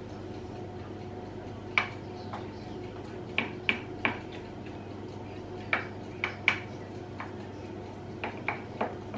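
Utensil clinking and knocking against a glass baking dish while tomato sauce is spread in it, about a dozen short sharp strikes in small clusters, over a steady low hum.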